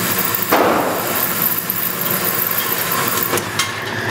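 A single gunshot about half a second in, its report ringing on in the reverberation of an indoor firing range. After it comes a steady low mechanical running with a few light clicks, as the target carrier brings the paper target back along its track.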